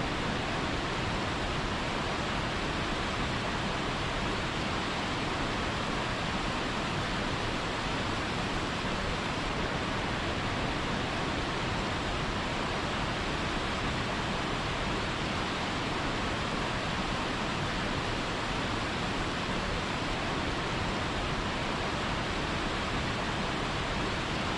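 Waterfall's rushing water, a steady, even hiss of falling and churning water that doesn't change.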